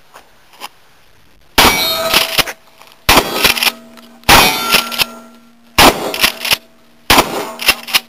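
Five gunshots fired at an even pace, about one every second and a half, each followed by the clang of a hit on a steel target. The struck steel plates keep ringing on a steady tone between shots.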